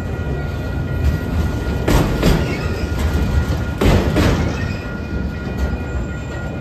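Autorack freight cars rolling past on steel rails: a steady heavy rumble, with two pairs of sharp clunks from the wheels about two seconds apart, and a faint thin steady high tone.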